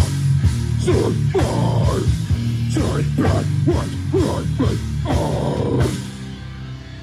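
Heavy live band with drums, bass, electric guitar and a shouted vocal, playing at full volume. The song stops about six seconds in, leaving a low steady tone hanging.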